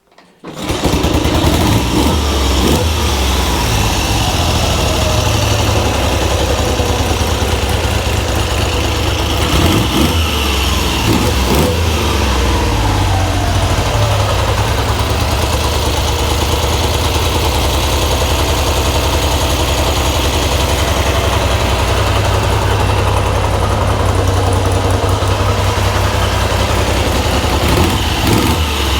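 1969 Triumph Trident's 750 cc three-cylinder engine running at a fast idle, with the revs rising and falling a few times, during carburettor balancing. The far-left cylinder runs erratically, which the mechanic takes for a carburettor fault.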